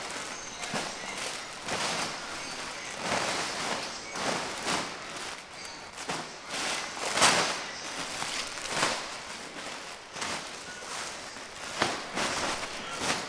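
Plastic shipping bags rustling and crinkling as items are packed into them, in irregular bursts, loudest at about seven seconds in and again near the end.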